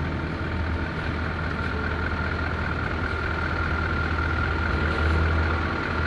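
Scania semi-truck's diesel engine running steadily at low revs as the truck rolls slowly, with a thin steady high tone above the low engine note.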